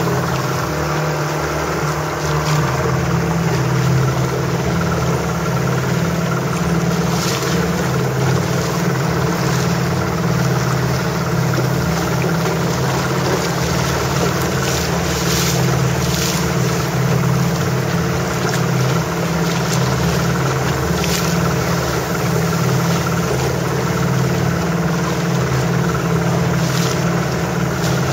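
Boat engine running steadily with a low hum, under a wash of water and wind noise with a few brief hissing swishes.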